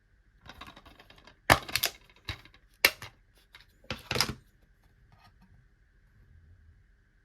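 Handling noises: a short rustle, then a run of sharp clicks and knocks, the loudest four between about one and a half and four and a half seconds in. A faint steady high whine runs underneath.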